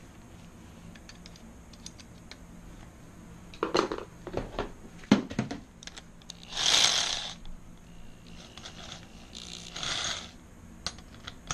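Electric drill running in two short bursts, each about a second long, driving the bolts that clamp a motorized-bicycle kit's rear sprocket to the wheel hub, with a few sharp metallic clicks before them.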